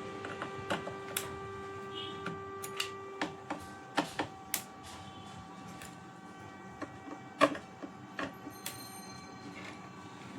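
Irregular clicks and knocks of hands and tools working on a home theatre amplifier's casing as it is opened up, one knock about seven seconds in louder than the rest. A faint steady hum runs underneath.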